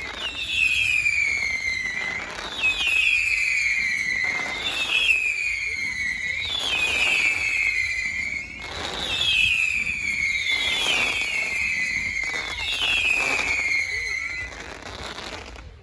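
Fireworks going off with a string of whistles, each one falling in pitch over about two seconds and repeating roughly every two seconds, mixed with bangs and crackle.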